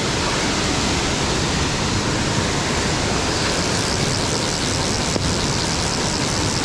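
Steady rushing of a waterfall on a mountain stream, an even hiss, growing brighter in the second half.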